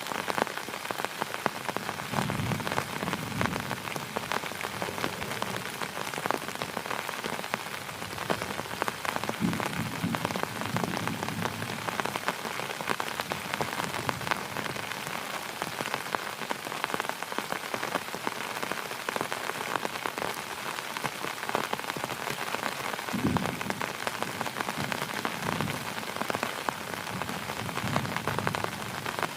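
Heavy rain falling steadily, with dense close-by drop hits on a surface and now and then a brief low rumble.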